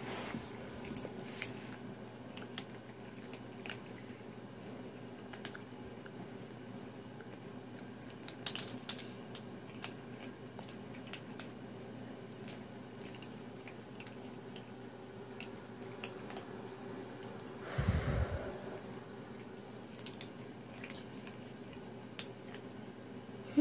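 Kittens chewing dry kibble from a bowl: scattered small crunching clicks throughout, over a steady low hum. About 18 seconds in there is one brief low thump.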